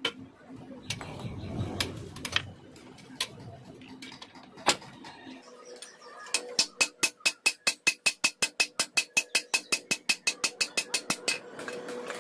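Hammer blows on a steel rod and on a motorcycle swingarm's pivot tube, driving the worn pivot bush out. There are a few spaced ringing metal strikes at first, then about halfway a fast steady run of about six strikes a second that stops shortly before the end.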